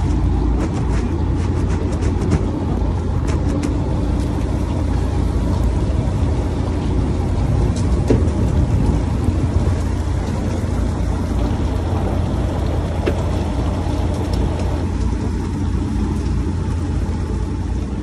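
Fishing boat's engine running, a steady low hum under light water noise, with a few scattered clicks in the first few seconds.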